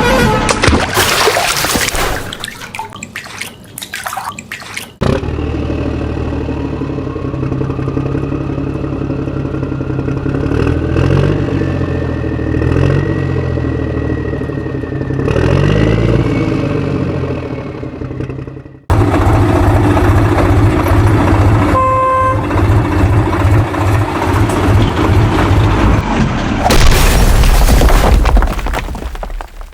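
Motor-vehicle engine sounds, a steady running hum with a rising rev partway through, then a second engine hum broken by a short horn beep. These are the truck and construction-vehicle engine and horn sounds that go with toy-truck play.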